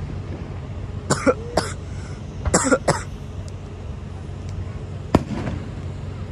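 A person coughing, two coughs a second or so in and two more about a second later. Near the end comes a single sharp bang, over a steady low rumble.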